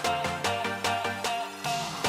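Background music with a steady beat of quick, evenly spaced notes, about four a second.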